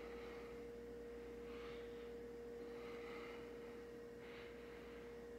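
Quiet room tone with a steady, faint hum at one pitch, and three soft, brief faint sounds spread through it.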